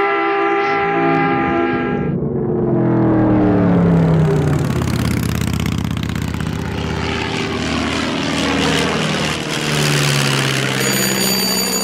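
A held horn blast that cuts off about two seconds in, followed by a vehicle passing by, its engine pitch falling as it goes away; a high steady ringing tone comes in near the end.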